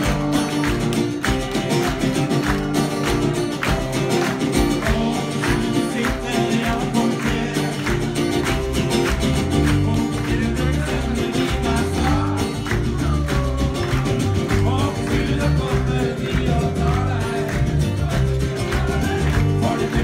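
Band music with guitar, bass and drums over a steady beat.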